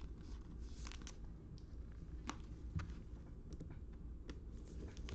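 2021 Panini Score football trading cards being flipped through by hand: faint, irregular light flicks and slides as cards are moved one by one, about six in a few seconds.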